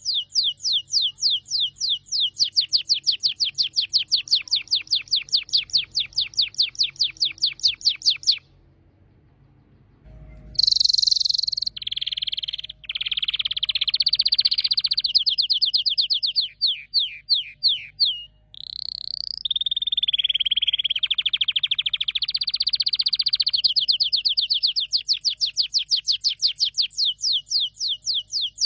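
Canary singing: long trills of fast repeated falling high notes, several a second. About eight seconds in the song stops for nearly two seconds, then resumes with varied rolls and trills.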